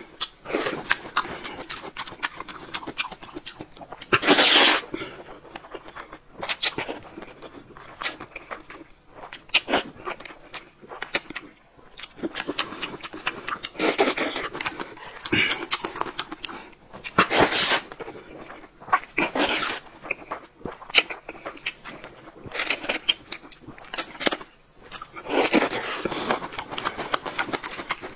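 Close-up mukbang eating sounds: a man slurping noodles and chewing wetly, with several loud slurps among continuous chewing and smacking.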